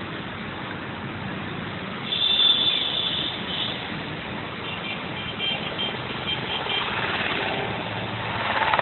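Steady outdoor background noise like distant traffic, with a high-pitched chirping call about two seconds in and shorter repeated chirps from about five to seven seconds.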